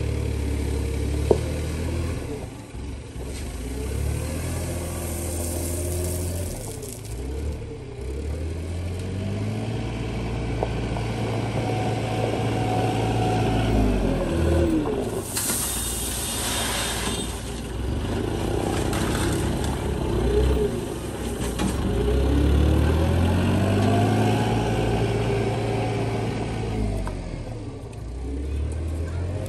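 Compact wheel loader's engine running and revving up and down repeatedly as it lifts and manoeuvres, with gravel pouring from the raised bucket into a dump truck bed about fifteen seconds in.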